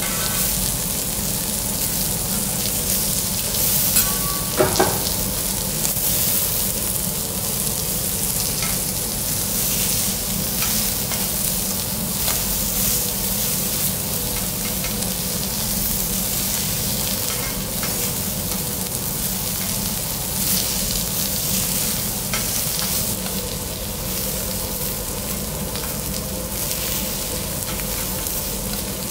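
Seafood sizzling on a teppanyaki iron griddle, with a steady hiss and metal spatulas scraping and tapping the plate. A couple of ringing metallic clinks stand out about four to five seconds in.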